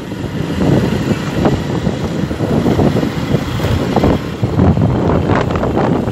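Wind buffeting the microphone on a moving motorcycle, over the steady rumble of the ride, in uneven gusts.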